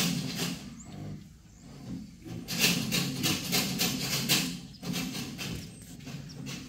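Wood shavings rustling and crunching under a young pig's trotters as it walks about the pen, in bursts, with the longest stretch in the middle.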